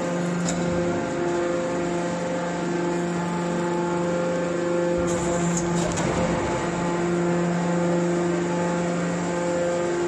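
Hydraulic scrap-metal baler's pump unit running with a steady hum, its tone wavering briefly about six seconds in.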